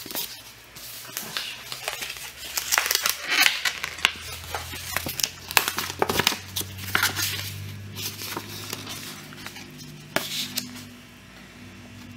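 Paper rustling and crinkling in irregular bursts as paperwork and wrapping in a shoebox are handled, thinning out near the end.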